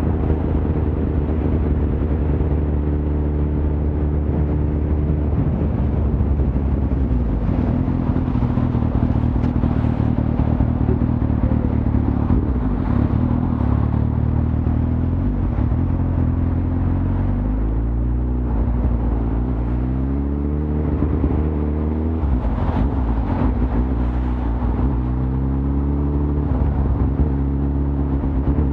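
Suzuki GSX-R1000's inline-four engine running under way, steady at first, then its revs rising and falling several times in the second half. A steady hiss runs beneath it.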